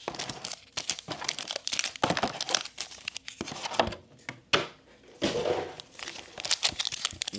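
Foil Pokémon TCG booster packs crinkling as they are lifted out of a plastic tray and shuffled in the hands, a dense run of sharp crackles and rustles.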